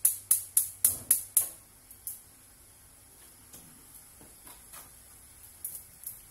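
Gas hob's electric spark igniter clicking rapidly as a burner is lit, about four clicks a second for a second and a half, followed by a few fainter clicks.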